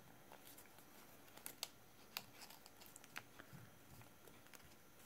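Faint, scattered crisp ticks and light rustling of a folded paper practice banknote as it is pressed and a corner is tucked into a slot, over near-silent room tone.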